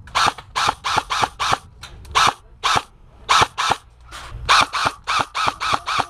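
A run of sharp airsoft gunfire cracks, about twenty of them, irregularly spaced at two to four a second, from the opposing team's shots landing close around the player's cover.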